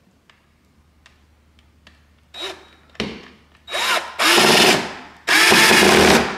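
Cordless drill driving a screw into a blind mounting bracket, starting with a few light clicks, then short bursts of the motor that grow longer and louder. The last two runs each last about a second.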